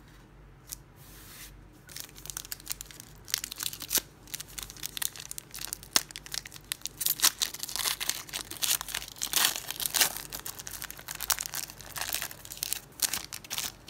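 Foil wrapper of a Panini Prizm football card pack being torn open and crinkled by hand: a dense, irregular crackling that starts a few seconds in, is loudest in the middle and dies away near the end.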